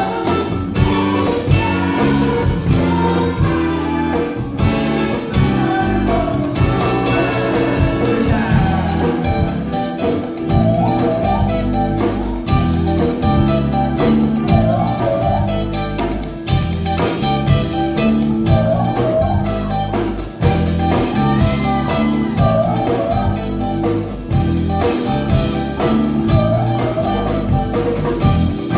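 Live band playing with singers: drums, bass, electric guitar and keyboard, with a steady beat and vocals over it.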